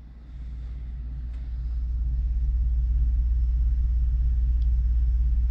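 A steady low mechanical rumble that swells over the first two seconds and then holds even.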